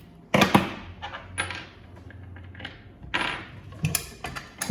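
Metal clinks and clanks of Davey water pump parts being handled as the spring-loaded relief valve is taken off. A sharp double clank about a third of a second in is the loudest, followed by several lighter knocks.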